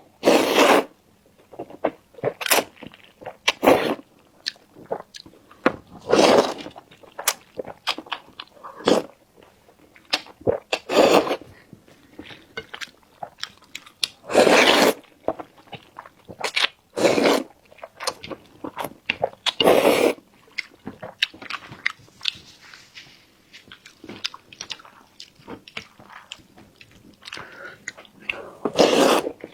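Close-miked chewing and biting of food, with irregular crunchy bites and sharp clicks every second or so.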